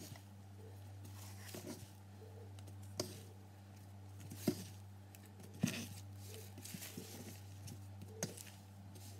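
Hand stretching and folding wet sourdough dough in a bowl: soft sticky handling sounds with a few sharp clicks and knocks, over a steady low hum.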